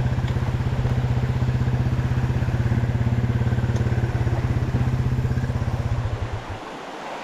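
Dirt bike engine idling with an even pulse, then switched off and running down about six seconds in, leaving the rush of a nearby creek.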